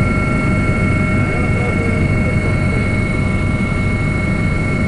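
Helicopter running steadily: a loud, even rumble of rotor and engine with a constant high turbine whine over it.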